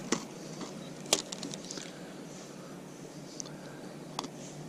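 Faint scattered clicks and ticks from a spinning rod and reel being handled while a jig is worked: a sharper click about a second in, followed by a quick run of small ticks, then a few single ticks later.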